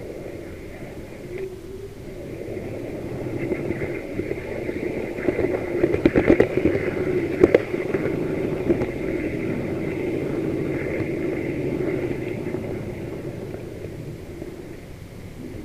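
H0 model locomotive running along the track with the camera on board: a steady motor hum and wheel rumble that swells in the middle, with a run of sharp clicks about six to eight seconds in.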